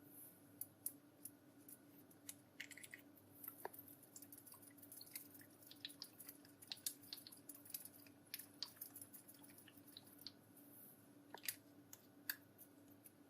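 Slime being handled and squeezed, with many small sticky pops and clicks scattered irregularly over a faint hum.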